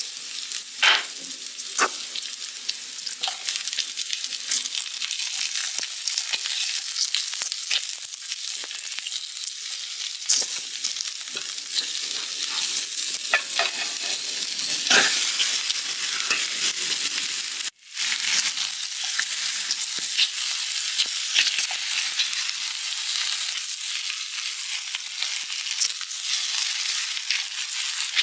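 Chicken 65 pieces frying in hot oil: a steady crackling sizzle with occasional sharp clicks of stirring, cutting out for an instant partway through.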